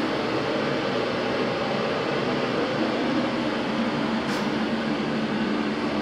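Steady whoosh and hum of a ventilation or air-conditioning fan running, even throughout.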